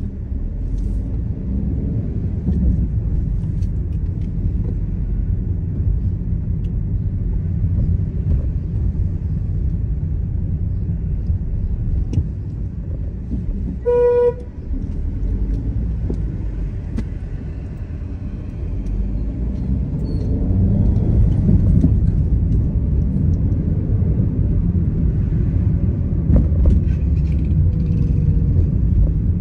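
Steady road and engine rumble of a car driving, getting louder in the last third, with one short car horn beep about halfway through.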